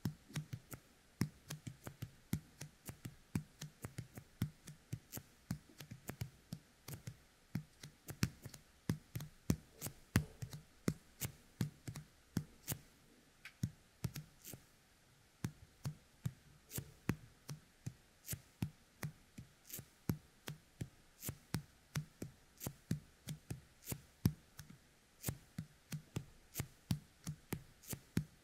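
Fingertips coated with the sticky resin of a Yōkai Kemuri toy being pressed together and pulled apart close to a dummy-head microphone's ear, giving a steady run of small sticky clicks, about three a second, with a short pause about halfway through.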